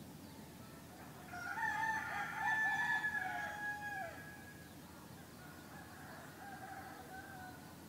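A rooster crowing: one long crow starting about a second in that drops in pitch at its end, then a fainter second crow.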